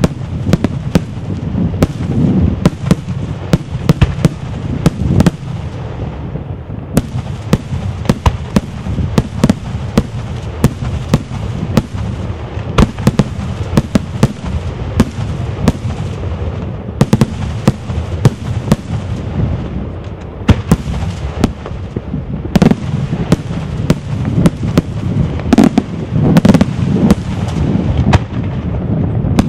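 Daytime fireworks: a dense, unbroken barrage of aerial shells bursting in the sky, many sharp bangs in quick succession over a continuous low rumble of overlapping reports.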